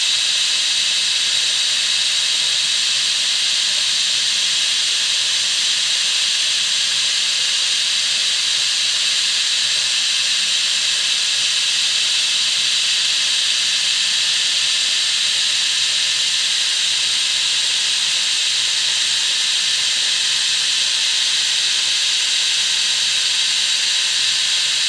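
Milling machine running steadily, an even high-pitched hiss that holds the same level throughout.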